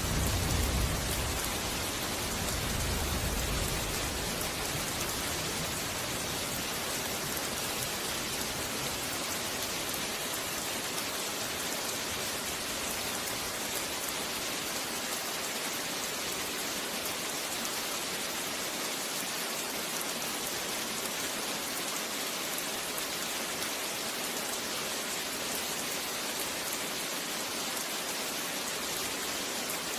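Steady rain pouring, with the low rumble of thunder dying away in the first few seconds.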